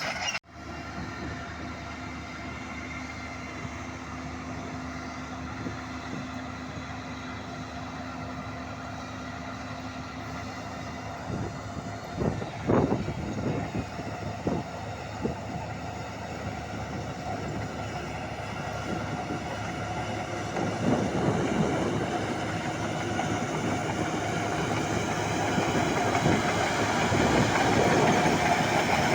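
Bulldozer's diesel engine running with a steady drone, with metallic clanks about twelve seconds in and again around twenty-one seconds. It grows louder toward the end.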